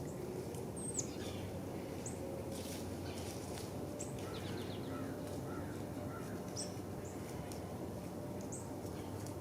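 Small birds chirping: short, high chirps about once a second, with a quick run of lower chirps about halfway through, over a steady low background rumble.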